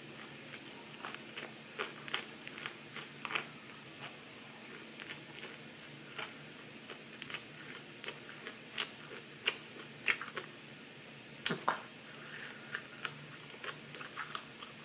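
A mouthful of broccoli being chewed, with irregular crunches and clicks of the teeth and mouth; the sharpest crunch comes about eleven and a half seconds in.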